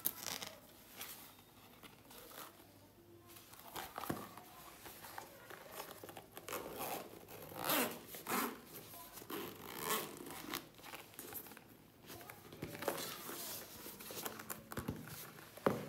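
The zipper of a hard-shell pencil case is drawn along in a series of short rasping pulls as the case is zipped shut, with the case being handled between pulls.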